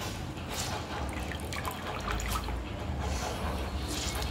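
Water dripping and trickling back into a steel bowl of rinse water as a handful of wet grated potato shreds is squeezed out by hand, in small irregular splashes.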